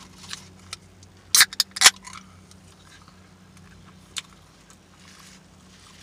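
A Pepsi aluminium can being opened: two sharp cracks of the pull-tab about a second and a half in, half a second apart, followed by a short hiss of escaping gas.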